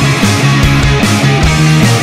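Loud grunge rock song: electric guitar and bass over a drum kit, with regular drum and cymbal hits.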